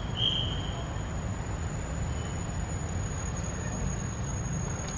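Outdoor ambience: a constant thin, high-pitched insect drone over a steady low rumble, with a short high tone that fades out within the first second.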